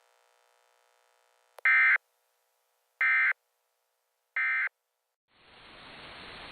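Three short bursts of Emergency Alert System digital data tones, each about a third of a second and about a second apart: the end-of-message signal that closes an EAS alert. A hiss of static fades in near the end.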